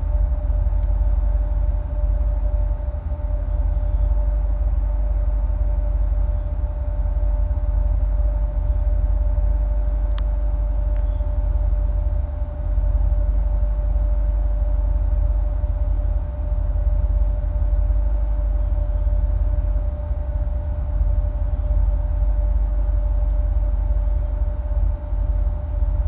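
2008 Corvette C6's LS3 V8, uncorked with long-tube headers and no catalytic converters, idling with a deep, steady rumble and a steady hum above it. The idle is the rough, unsettled one the owner is unsure is normal, with the loudness dipping slightly now and then.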